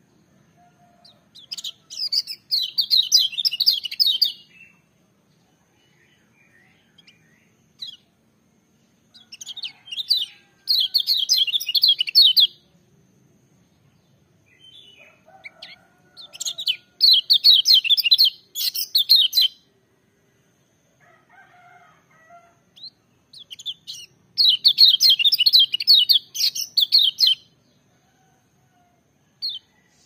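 Caged kecial kuning white-eye singing in loud bouts of rapid, high-pitched warbling trills, each about three seconds long, four times about seven seconds apart, with soft chips between.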